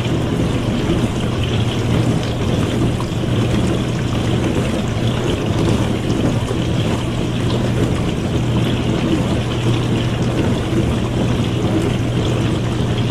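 Dishwasher running: steady spraying and sloshing water over a constant low hum from its pump motor.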